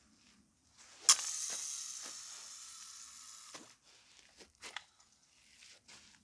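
Fishing line whirring off a reel during a cast: it starts sharply about a second in and fades away over about two and a half seconds. A few light clicks follow.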